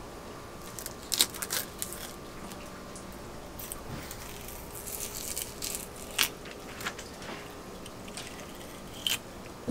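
A knife cutting into a skipjack tuna, giving a scatter of short crunching and scraping clicks as the blade works through skin and along the bones, over a low steady hum.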